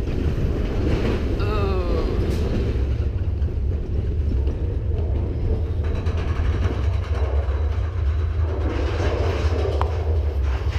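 Mine-train roller coaster running along its track: a steady low rumble with rattling from the cars.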